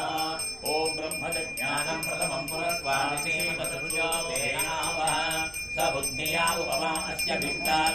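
A puja bell rung rapidly and steadily, about four strikes a second, over voices chanting.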